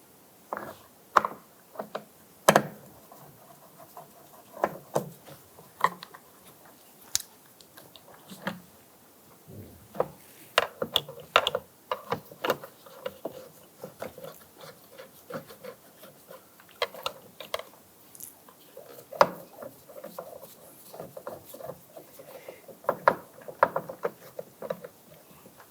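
Screws being backed out of a plastic interior door panel with a Phillips screwdriver: scattered small clicks, taps and scraping at an uneven pace, with a sharper knock about two and a half seconds in.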